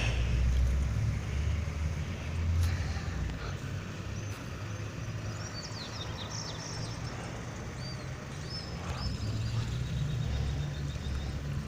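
Low, uneven rumble of street and vehicle noise, with small birds chirping high and briefly from about four seconds in.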